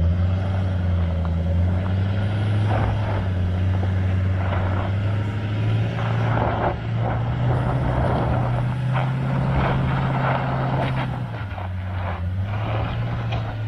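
Off-road 4x4 engine running steadily under load on a steep rocky climb, with intermittent rougher noise bursts over it. The engine note drops briefly near the end.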